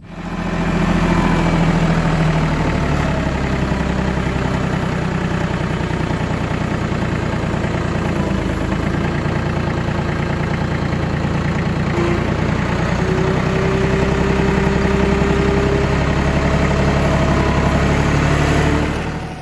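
Ryobi portable concrete mixer running, a loud steady motor drone with its turning drum, cutting in suddenly at the start and stopping shortly before the end.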